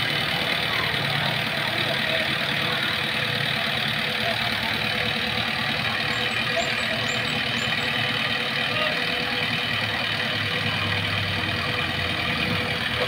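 Engine of an odong-odong tourist train, the small motor tractor pulling open passenger carriages, running steadily at low revs as it creeps forward.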